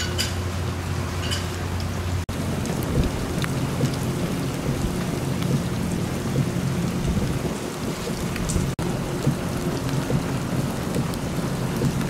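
Heavy rain falling steadily on wet pavement, with a low rumble underneath. The sound drops out for an instant twice where clips are joined.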